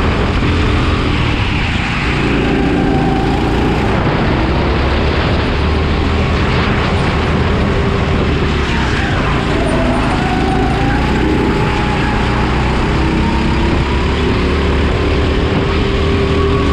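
Honda GX270 single-cylinder four-stroke engine of a racing kart running hard, heard close up from the kart itself. Its pitch dips and climbs again a few times as the kart slows for corners and accelerates out of them.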